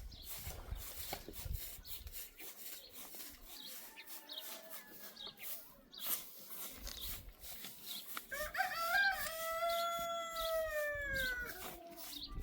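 Rooster crowing: a fainter crow a few seconds in, then one long, arching crow about eight seconds in, with scattered light clicks.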